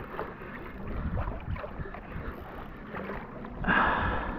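Wind buffeting the microphone and water sloshing against the plastic hull of a Hobie Revolution 13 kayak on a swelly sea, with a brief louder rush of water near the end.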